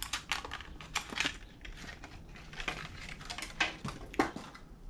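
Plastic package of a fishing jig being pried open and handled by hand: irregular crackles and clicks, with sharper snaps about a second in and again near the end.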